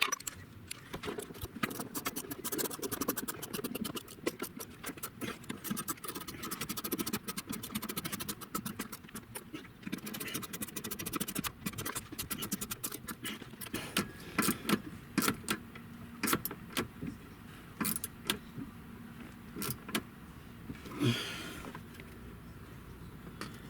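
Hand ratchet clicking in fast runs as small bolts are driven in, mixed with metallic clinks and knocks of tools and parts, and a brief rustle near the end.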